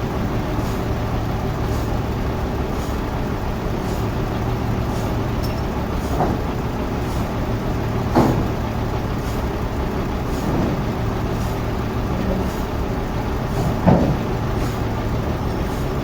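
Sawmill machinery running steadily with an engine hum, with two short knocks, one about halfway through and one near the end.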